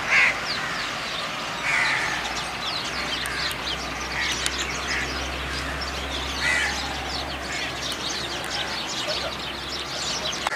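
Birds calling: a steady stream of quick chirps, with several louder calls standing out, the loudest right at the start.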